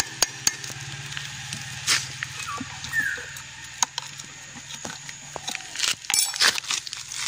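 Scattered light metal clicks and knocks as the two halves of a Honda CG125 motorcycle engine's crankcase are prised apart with a flat screwdriver and handled, the seam just coming loose. A low hum fades out in the first couple of seconds, and a brief high squeak comes about three seconds in.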